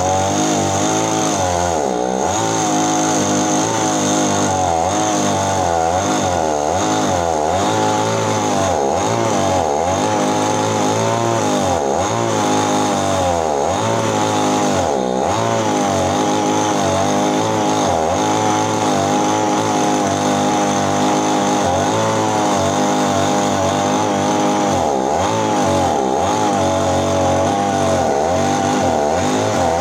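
Small chainsaw cutting into an areca palm stump, its engine pitch rising and falling over and over as the chain bites and eases.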